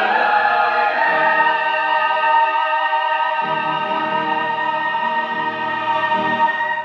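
Mixed choir singing with piano, holding one long chord; lower voices come in about three and a half seconds in.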